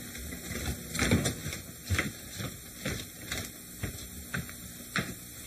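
A series of knocks and thuds, roughly two a second, over a low steady background.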